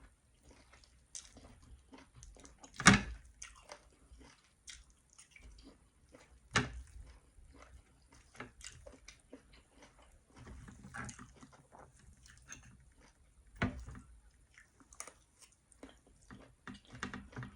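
Close-miked eating: a person chewing and biting food, with small wet clicks and crackles throughout. Three sharp knocks stand out, about three seconds in, near seven seconds and near fourteen seconds; the first is the loudest.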